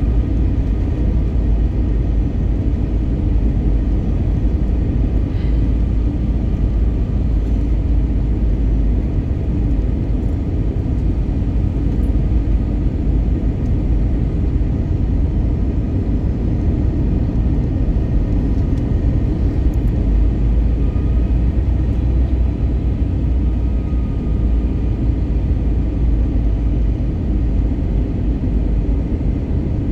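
Cabin noise inside an Airbus A320neo in flight, heard from a window seat: a steady low rumble of engines and airflow with faint steady tones above it.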